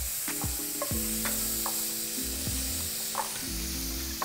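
Butter and seafood sizzling in a hot cast-iron skillet, a steady hiss, with a few sharp clicks of a metal spoon against the pan as it is stirred.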